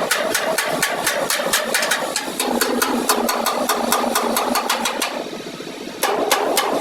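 A machine running with a steady, rapid ticking, about six ticks a second, over a mid-pitched hum. It pauses for about a second near the end, then starts again.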